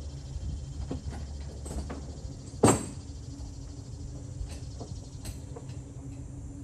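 Several light clicks and knocks, and one sharp, loud knock a little before the middle, over a steady low hum.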